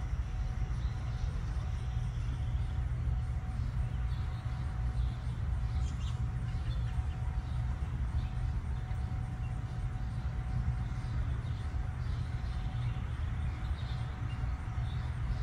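Steady low outdoor rumble, with a faint steady hum and a few faint high chirps here and there.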